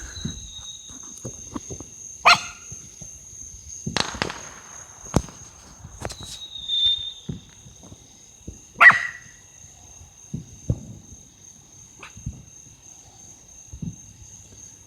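Distant fireworks going off in scattered sharp bangs and pops, mixed with a dog that the fireworks have worked up barking a few times.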